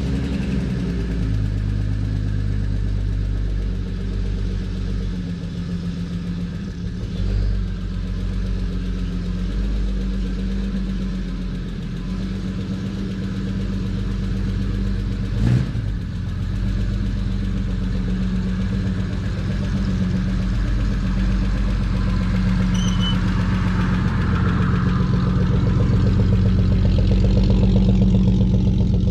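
Jeep Wrangler running through a glasspack muffler with no catalytic converter, a steady low exhaust note as it drives slowly out of the shed. It gets louder as it comes up close near the end. A single sharp knock sounds about halfway through.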